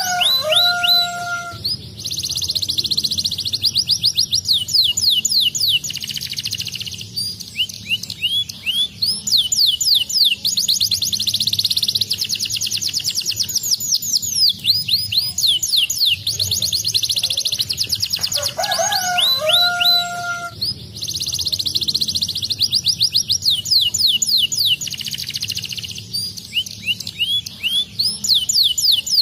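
Domestic canary singing: fast trills and rolling runs of quick notes that sweep up and down, phrase after phrase with brief breaks. A lower two-toned whistled note comes in near the start and again about two-thirds of the way through.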